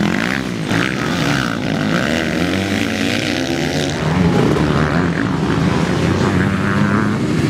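Motocross bikes' engines revving as several bikes race past on the dirt track. About halfway through, this gives way to a louder, denser din of a full starting grid of motocross bikes revving at the start gate.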